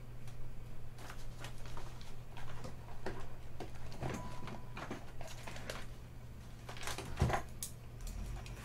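Hands fetching and handling a multimeter and its kit: scattered clicks, taps and rustles, with one louder thump a little after seven seconds in. A steady low hum runs underneath.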